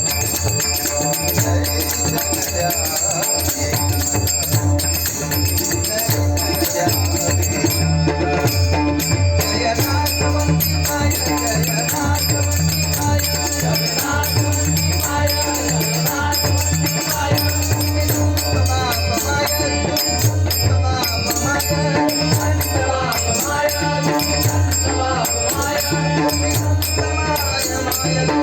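Devotional bhajan music: a drum keeps a steady rhythmic beat under jingling, rattling hand percussion and a sustained melody line, with little or no singing.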